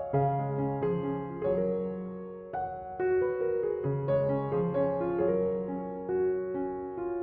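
Background music: a gentle piano piece playing melody notes over a bass line.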